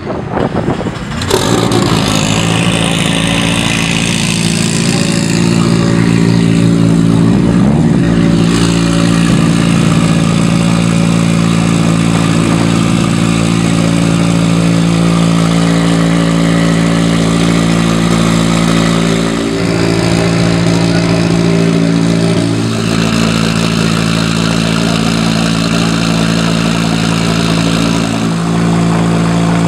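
Tuned Mitsubishi Lancer Evolution VIII MR FQ-320's turbocharged four-cylinder engine idling, loud and steady, through a side-exit exhaust.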